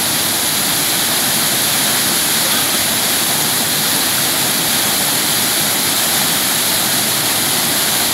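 Small waterfall pouring in two streams over boulders and splashing into a plunge pool: a steady, hissing rush of falling water.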